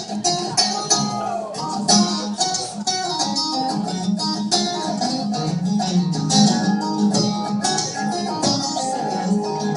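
Acoustic guitar strummed in a steady rhythm, playing a song's instrumental intro.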